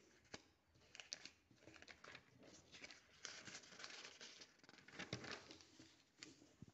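Faint rustling and crinkling of paper sheets as a printed question paper is handled and a page is turned over, with several short sharp crackles along the way.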